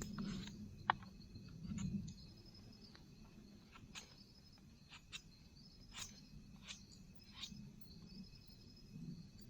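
Crickets trilling steadily in the background, with scattered sharp clicks and light knocks from hand work, the sharpest about a second in, and some rustling handling noise near the start.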